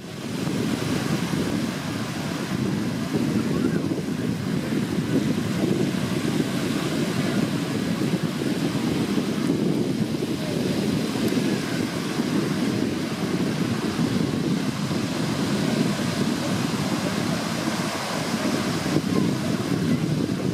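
Wind buffeting the microphone over small waves breaking on a beach: a steady, gusty rush that fades in over the first second.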